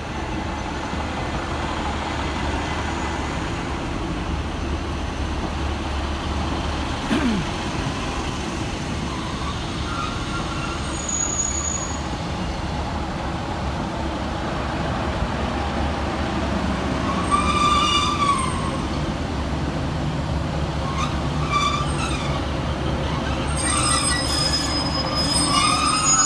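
Passenger train moving through the station platform with a steady low rumble, and a brief high wheel squeal about two-thirds of the way in, with more squeaks near the end.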